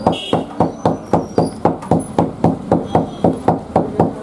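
A stirring tool knocking against an iron kadai in a steady rhythm of about four strokes a second as the sugar and jaggery syrup for gajak is beaten.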